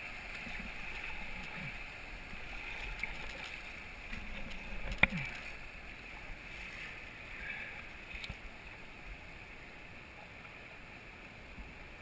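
River water rushing and splashing along an inflatable raft, growing a little quieter toward the end. A single sharp knock about five seconds in.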